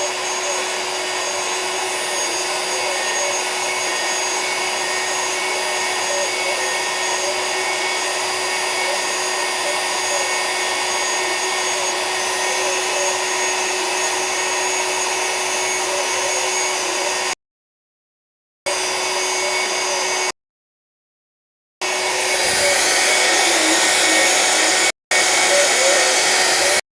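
Homemade CNC router's spindle running with a steady whine while cutting 3 mm MDF. The sound cuts off abruptly to silence a few times in the second half, and comes back slightly louder.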